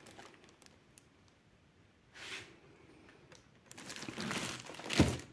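Clear plastic wrapping on a boxed figure crinkling as it is handled: a short rustle a little past two seconds in, then steady crinkling from just under four seconds in, loudest near the end.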